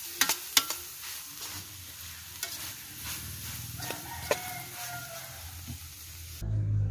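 Metal spatula stirring and scraping chicken sisig in an aluminium pan over a wood fire, with the sizzle of the meat frying. There are a few sharp knocks of the spatula against the pan in the first second. Near the end it gives way to a low rumble.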